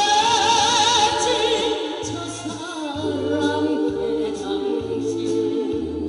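A woman singing a Korean song live into a microphone over a recorded backing band. Early on she holds a long note with wide vibrato, then after a short phrase holds another long note.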